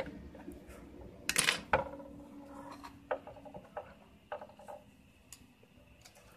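Tweezers and a soldering iron being handled over an LED display module. There is a short clatter of metal clicks about a second and a half in, then scattered light clicks and taps.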